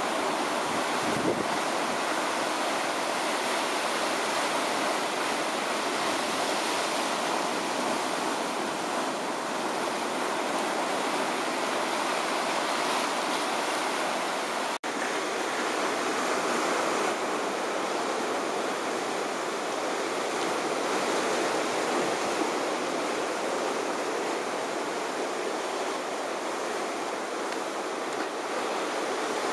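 Ocean surf washing against the rocky shore, a steady hiss of breaking waves that cuts out for an instant about halfway through.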